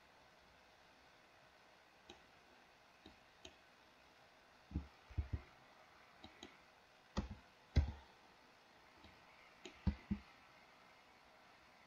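Computer keyboard and mouse clicks: scattered single and paired clicks, the strongest in the middle and near the end, over faint room hiss.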